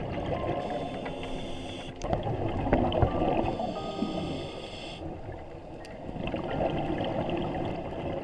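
Scuba diver breathing underwater through a regulator: two hissing inhalations, each followed by a louder rush of bubbling exhaled air.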